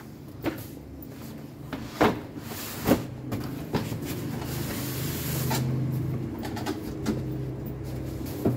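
A cardboard box being lifted and slid off its styrofoam packing. There are a few sharp knocks and taps in the first four seconds, then a long rubbing and scraping of cardboard against styrofoam.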